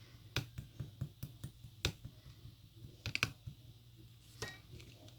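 A dozen or so irregular light clicks and taps, some in quick clusters, over a low steady hum.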